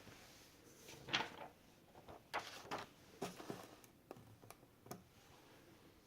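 Handling sounds: a few short scrapes and knocks in the first half, then several separate sharp clicks.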